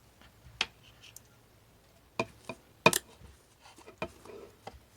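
Slime being put into a container: scattered light clicks and taps of the container being handled, with a few sharper knocks about two and three seconds in.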